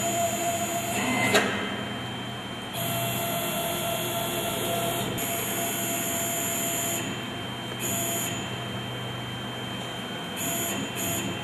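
Stepper motors of a 3636 CNC router jogging the gantry in several separate moves: a high-pitched whine that starts and stops four or five times, over a steady low hum.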